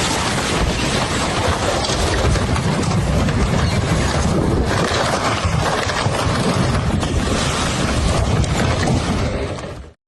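Loud, steady rush of floodwater, with wind buffeting the microphone. It cuts off suddenly near the end.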